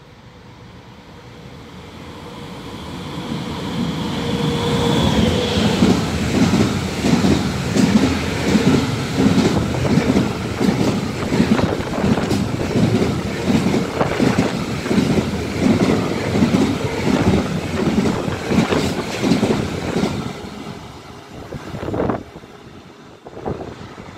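A freight train of covered hopper wagons, a fertilizer train, passing through the station at speed. It comes in with a steady whine, then the wheels clatter rhythmically over the rail joints for about fifteen seconds before the sound fades as the train recedes. There is a single knock near the end.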